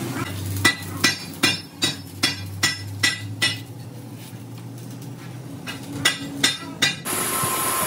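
A hammer striking metal in a steady run of blows, about two and a half a second, eight in a row; after a pause come three more, each blow with a short metallic ring. About seven seconds in, a steady machine running noise starts.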